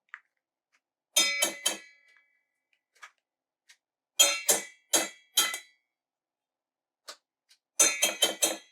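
A utensil rapped against the rim of a cup or mixing bowl, ringing clinks in three quick runs of three or four taps each, knocking cream cheese loose into the bowl.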